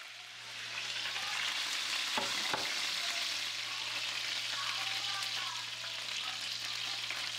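Chicken pieces shallow-frying in a little oil in a pan, the oil sizzling steadily, with a couple of faint clicks about two seconds in.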